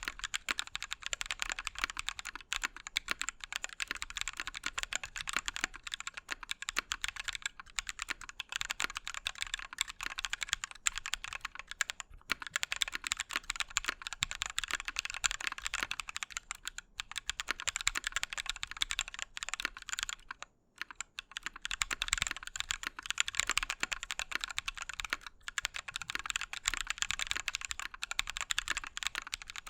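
Fast continuous typing on a mechanical keyboard with Drop Holy Panda v2 tactile switches on an aluminium plate, a dense stream of key clacks with a few short pauses, the longest about two-thirds of the way in.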